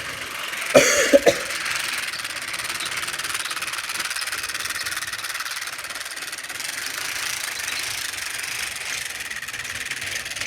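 Toy train running along its track with a steady whirring rattle, with a few short clacks about a second in.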